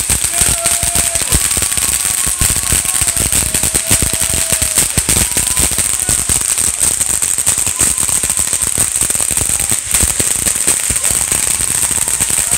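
Ground fountain firework spraying sparks: a steady high hiss with dense rapid crackling and popping throughout.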